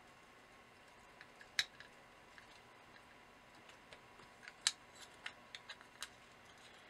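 A few faint clicks and taps of printed circuit boards being slotted together by hand, the sharpest about a second and a half in and another near five seconds, with smaller ticks after it.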